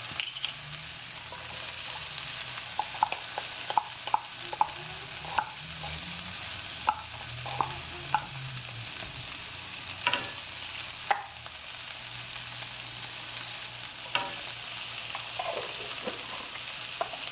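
Chopped onions, jalapeño and corn sizzling in oil in a frying pan while being stirred, with a steady hiss and frequent short clicks and scrapes of the utensil against the pan.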